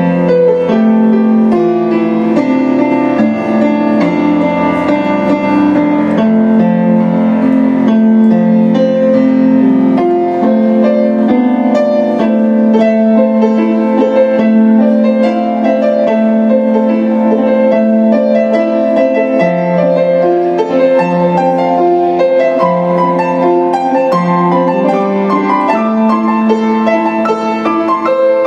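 Kawai grand piano being played: a continuous stream of chords and melody notes, one ringing into the next, without a pause.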